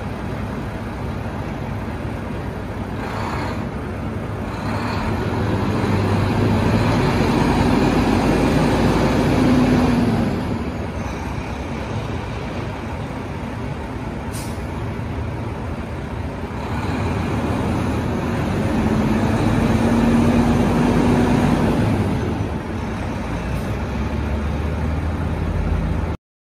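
2009 Volvo VNM semi tractor's 10.8-litre Volvo D11 diesel running as the truck drives. The engine pulls louder under throttle twice, from about five seconds in and again from about seventeen seconds in, its note rising a little before it drops back.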